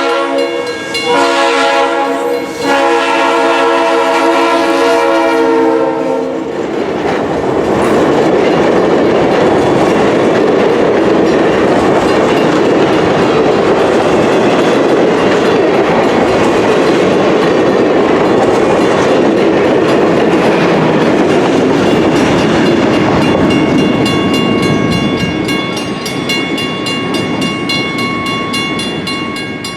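Diesel locomotive's multi-note horn blowing for about six seconds with two short breaks, then a passing train's engine and wheels on the rails, with clickety-clack, for about eighteen seconds. Near the end a steady high ringing comes in as the train noise fades.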